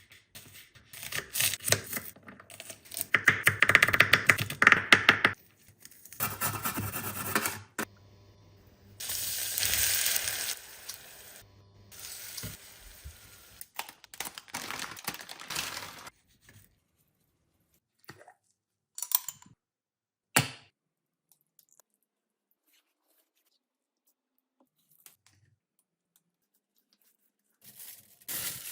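Close-up food handling in short separate bouts of crackling, rustling and clicking, each lasting one to a few seconds, then a few single sharp sounds and several seconds of near silence before it picks up again near the end.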